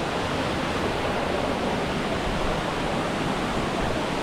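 Waterfall: falling water rushing steadily with an even hiss, unchanging throughout.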